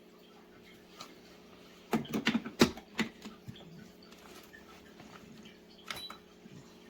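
A quick cluster of clicks and knocks about two to three seconds in, and another brief clatter near the end, from hard objects being handled, over a faint steady hum.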